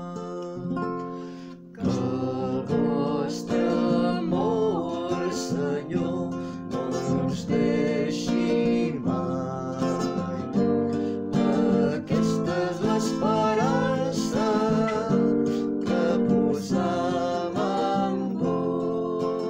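Acoustic guitar music for a liturgical psalm: plucked and strummed chords under a wavering melody line.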